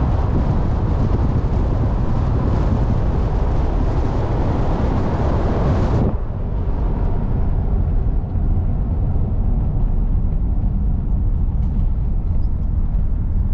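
Van driving on the road, heard from inside the cab: a steady low engine and road rumble. For the first six seconds a rushing hiss of wind from the open window lies over it, then the hiss cuts off abruptly.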